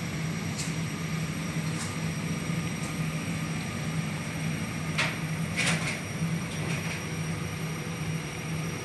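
Steady low mechanical hum with an even hiss, broken by a few light clicks, two of them louder about five to six seconds in.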